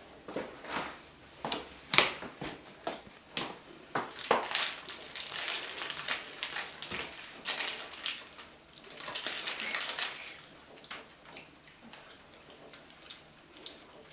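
Irregular crackling and crinkling in bursts, as of plastic food packaging, likely a cheese bag, being handled while pizza toppings go on. It is busiest for the first ten seconds and thins to a few scattered ticks near the end.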